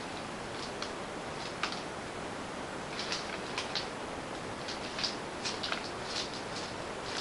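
Clear plastic wrapping and a magazine handled close to the microphone: scattered short crinkles and rustles over a steady hiss.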